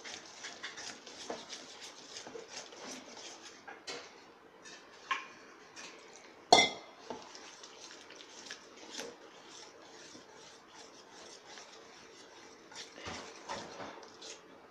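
Metal spoon beating thick besan (gram flour) batter in a stainless steel bowl: quick clinks and scrapes of the spoon against the bowl, with one louder clink about six and a half seconds in.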